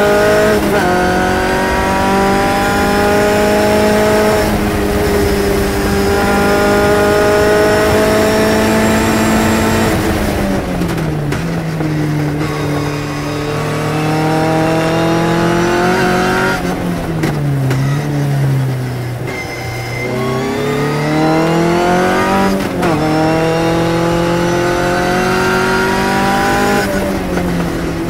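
Phantom S21 sports racing car's engine heard from the cockpit at race pace. It pulls up through the gears with quick upshifts, each one a sudden drop in pitch followed by a fresh climb. About ten seconds in and again around seventeen seconds it falls away with stepped downshifts for corners, then accelerates hard again.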